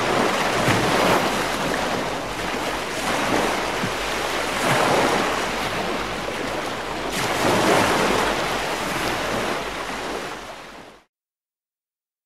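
Ocean surf: waves breaking and washing in, swelling and falling back every two to three seconds, then fading out.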